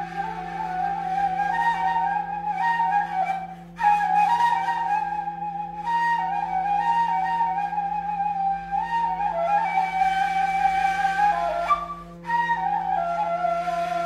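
Armenian blul, a wooden end-blown flute made by Master Galstyan, playing a slow melody of held notes that step up and down, breaking off briefly for breath about four seconds in and again about twelve seconds in. A steady low drone sounds beneath it throughout.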